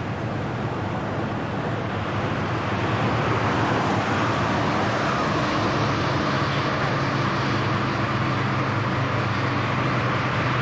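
Car driving along a multi-lane road heard from inside the cabin: a steady engine hum under road and wind noise, growing a little louder about two to three seconds in.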